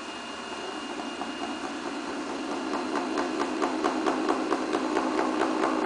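A flexible spring-metal tool chattering against clay spinning on a potter's wheel, over the wheel motor's steady hum. The clatter grows louder over the first couple of seconds and settles into a rapid, even run of ticks, about five a second.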